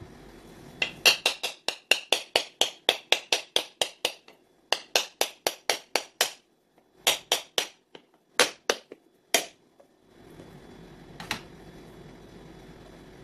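A knife's back striking the hard shell of a whole coconut in quick runs of sharp taps, about four a second with short pauses, then a single tap near the end. The taps go around the middle of the coconut to crack it in two.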